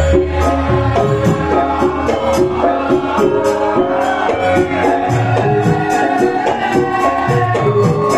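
Traditional Javanese gamelan music accompanying a lengger dance: struck pitched percussion plays a repeating melody over low sustained tones, with a quick, even, rattling percussion on top.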